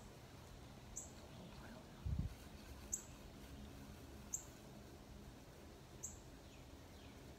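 Faint, short, high chirps, each falling slightly in pitch, repeating every second or two like a small bird calling. A dull low thump comes about two seconds in.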